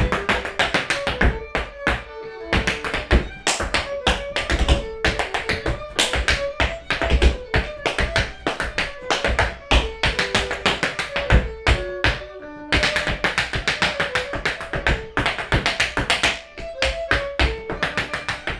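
Hard-soled dance shoes beating fast, dense rhythms of taps and stamps on a wooden floor in Irish step dance, over background music with a melody.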